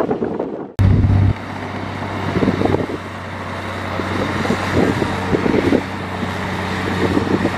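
Heavy diesel earthmoving machinery running with a steady low engine hum. Less than a second in, the sound breaks off for a moment and comes back louder for about half a second before settling.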